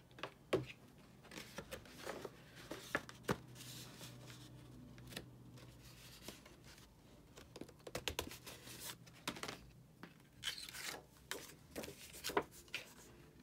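Stiff 67 lb Neenah cardstock petals rustling and crinkling as they are bent and handled, with scattered light taps and scrapes of paper against paper and the cutting mat.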